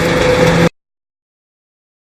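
A machine running loudly with a steady hum, cut off abruptly less than a second in, then complete silence.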